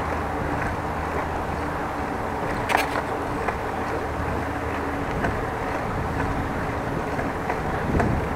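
Steady rolling noise of a bicycle ride, tyres running over the bike lane, with a sharp click about three seconds in and a brief knock near the end.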